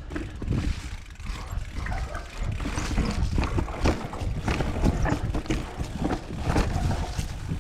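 Mountain bike rolling down a dirt trail: wind rumbling on the microphone, with the tyres and frame rattling and knocking over rough ground, growing busier about three seconds in.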